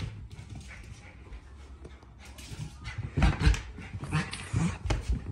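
A Shetland sheepdog's paws scrabbling and thumping on a rug and wooden floor as it spins and runs in circles. The thumps get heavier and come more often from a little past halfway.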